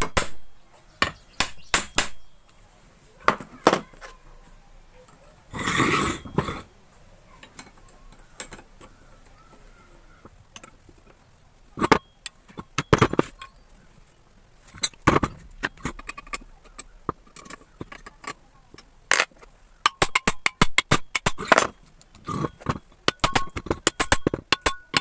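Small metal parts and hand tools clinking and knocking as a water pump is put back together: nuts and washers being handled and fitted, a brief scraping rustle about six seconds in, and a quick run of light clicks near the end.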